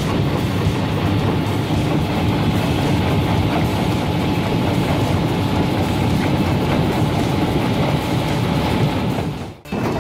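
Mobile rock crusher running, with rock and soil rattling and tumbling through its feed hopper in a steady, dense clatter. The sound drops out briefly near the end.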